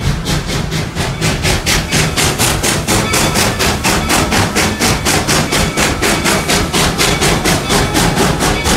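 Steam locomotive working under way, its exhaust chuffing in a fast, even rhythm of about five beats a second.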